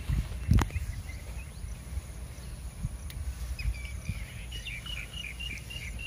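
Outdoor ambience with a steady low rumble, a sharp snap about half a second in, and a bird giving a quick run of repeated chirps near the end.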